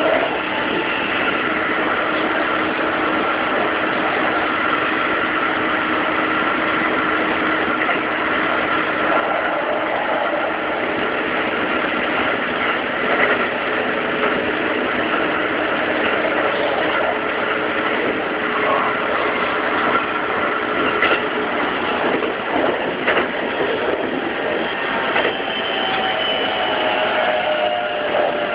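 Keikyu 2100-series electric train with a Siemens GTO inverter running at speed, heard from inside the front car. Its traction motors and gears whine at several steady pitches over the rumble of wheels on rail, with scattered clacks over joints and points. Near the end a couple of motor tones slide down in pitch.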